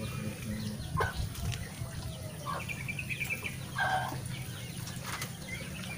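Chickens clucking in short calls a second or so apart, with higher bird chirps between them, over a steady low hum.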